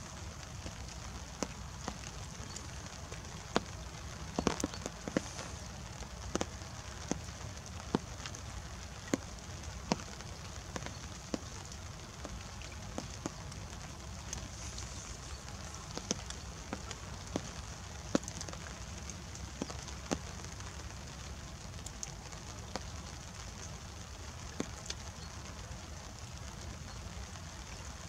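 Light rain: scattered drops tapping sharply and irregularly, roughly one a second, over a steady low rumble and a soft hiss.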